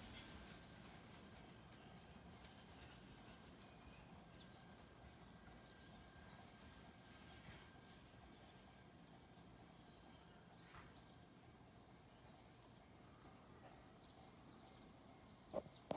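Near silence: quiet outdoor ambience with a few faint bird chirps, then one short sharp knock near the end.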